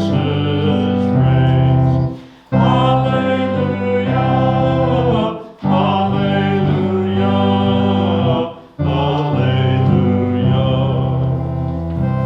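Congregation singing a hymn to organ accompaniment, one phrase after another, with three short breaks where voices and organ stop together between phrases.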